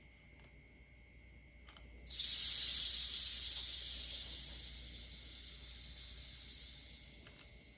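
Carbonated Sprite fizzing: a sudden hiss about two seconds in that slowly dies away over the next five seconds, with a few faint clicks before it.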